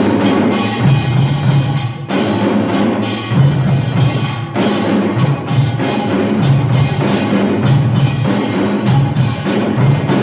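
Samulnori percussion ensemble playing: kkwaenggwari small gongs, jing, janggu and buk drums beating a fast, dense rhythm without a break.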